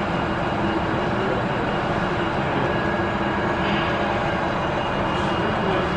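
Model freight train rolling along the layout track, a steady rumble of small wheels on rails.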